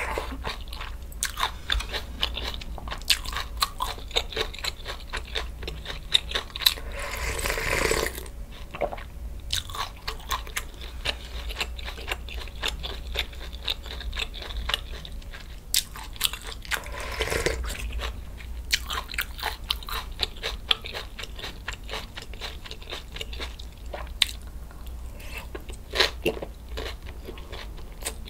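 Close-miked eating sounds: steady crisp crunching and chewing of food, typical of fresh cabbage kimchi. Two longer slurps of soup break in, one about a quarter of the way in and one just past the middle.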